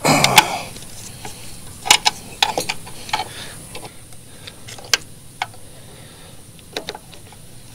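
Scattered light metallic clicks and taps as a grease gun coupler is worked onto the track tensioner's grease fitting on a mini excavator, with a short louder noise right at the start.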